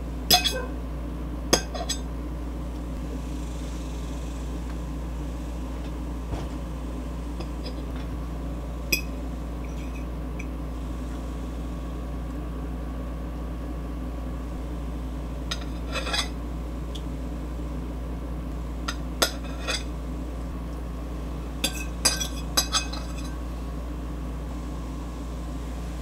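Metal fork clinking against a ceramic plate in scattered sharp clinks, a few near the start and small clusters later on, over a steady low electrical hum.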